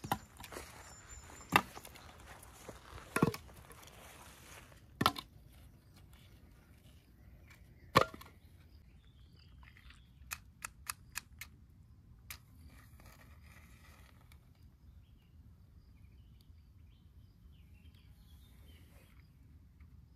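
Wooden firewood sticks being set down one at a time onto a pile on the ground, giving a sharp wooden knock every second or two, five in all. Near the middle comes a quick run of about five light clicks, then faint rustling.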